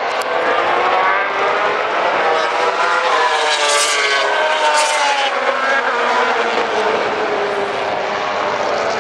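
Several racing motorcycle engines running on the circuit. Their pitch climbs for the first few seconds and then falls away as they accelerate, shift and pass.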